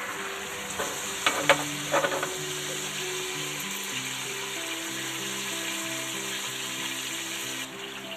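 Pork loin chops sizzling as they fry in butter and oil in a frying pan. A few sharp clicks of tongs against the pan come about one to two seconds in as the chops are turned.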